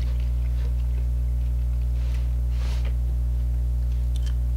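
Faint wet mouth clicks of someone chewing dry beef jerky, with one soft noisy swallow or breath about two and a half seconds in, over a steady low electrical hum.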